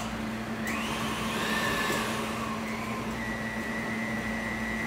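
Electric stand mixer running, beating a butter-and-egg mixture in its steel bowl; its motor whine rises in pitch about a second in, then holds steady.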